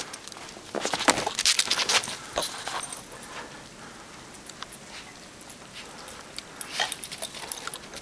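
German shorthaired pointer playing in snow: irregular crunching and scuffling, heaviest in the first couple of seconds, quieter in the middle and picking up again near the end.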